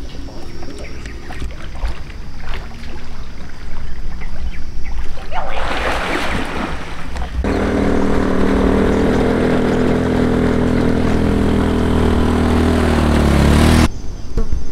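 Low wind rumble, then a rush of noise about halfway through. A motorcycle engine then runs steadily and grows louder as it comes up the road, its pitch dropping slightly before it cuts off abruptly near the end.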